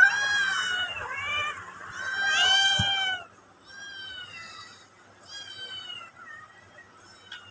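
A cat meowing over and over: a run of about six high-pitched, wavering meows, loud for the first three seconds and fainter after that. There is a single sharp tap about three seconds in.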